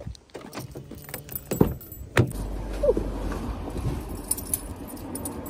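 Keys jangling as someone gets into a car, with a car door shutting with a thud about two seconds in; after it, small clicks and rattles inside the closed cabin over a low rumble.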